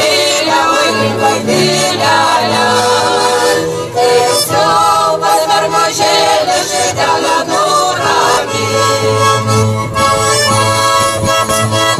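A Lithuanian folk ensemble singing a traditional song in chorus to button accordion and double bass. Near the end the voices stop and the accordion and bass play on alone.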